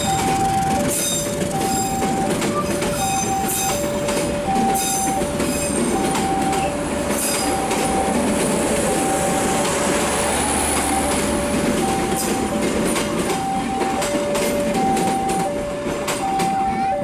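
Passenger train coaches rolling past at a level crossing, wheels clattering over the rail joints, with a high wheel squeal for a few seconds in the middle. Over it the crossing's warning alarm keeps sounding two alternating tones, switching about every three-quarters of a second.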